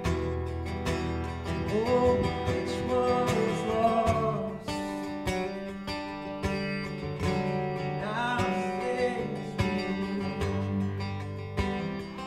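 Man singing a slow worship song, accompanying himself on a strummed acoustic guitar. The guitar strumming is steady throughout, and the voice comes in with two phrases, a couple of seconds in and again about eight seconds in.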